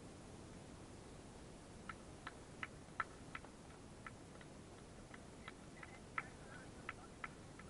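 Faint handclapping from a few spectators: sharp claps about three a second, starting about two seconds in and going on with small gaps.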